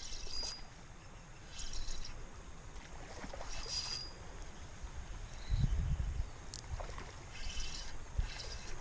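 River water running and trickling, with several short splashy flurries and a low rumble about six seconds in.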